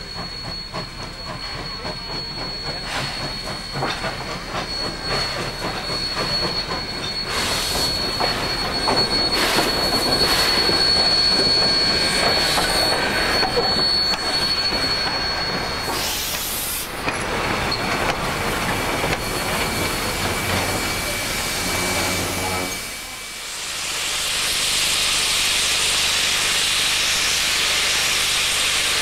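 Steam locomotives 2705 and 3642 working a train past: exhaust beats over train noise, with a steady high-pitched wheel squeal that stops about halfway through. Near the end, after a short drop, a steady loud hiss of steam from the locomotive's open cylinder drain cocks.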